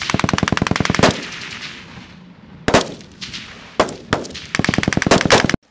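Live fire from several M16-type rifles: a rapid string of shots, a few single shots about three seconds in, then another rapid string that cuts off abruptly near the end.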